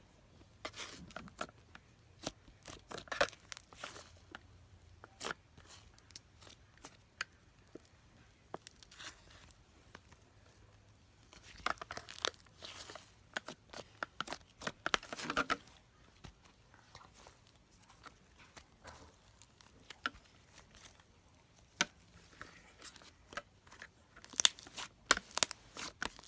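Slime being squeezed and stretched by hand, making irregular crackles and sharp pops in bursts, the loudest ones near the end.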